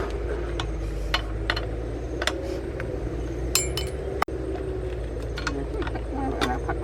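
Scattered sharp clicks and knocks, one of them a ringing metallic clink about three and a half seconds in, over a steady low hum.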